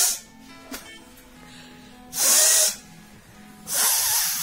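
A woman blowing her nose hard in short, forceful blasts: two blows about half a second each, the first about two seconds in and the second near the end, over faint background music.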